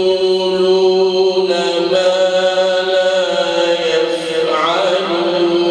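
A man's solo Quran recitation (tilawa), chanted melodically in long held notes; the pitch steps to a new note about a second and a half in and turns through an ornamented waver into another held note near the end.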